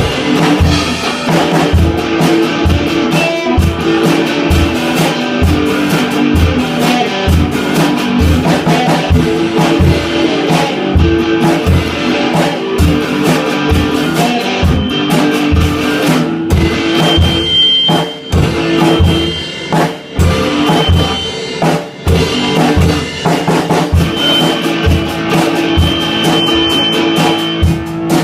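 Instrumental passage of a rock song: a drum kit keeps a steady beat, with bass-drum hits about twice a second under sustained guitar chords, dropping out briefly a few times in the second half.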